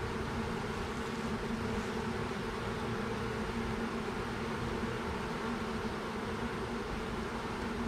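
A mass of honeybees buzzing in a steady, even hum as the shaken-out colony gathers and marches into a hive box.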